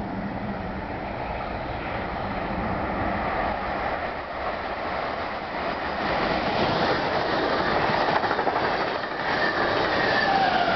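An Amtrak push-pull train passing at speed on electrified track, cab car first: a rushing of wheels and air that grows as it nears, with a few rail clicks. Near the end the electric locomotive at the rear goes by, its whine dropping in pitch.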